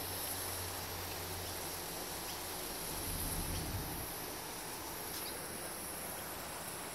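Water spraying from a garden hose nozzle in a steady hiss, with a steady high-pitched drone of insects above it.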